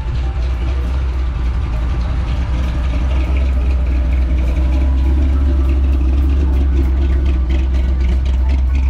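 A car engine running with a deep, steady note that grows somewhat louder about three seconds in.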